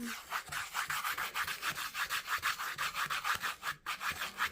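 Play sand in a tray rubbed and swished in quick, even back-and-forth strokes, about five a second.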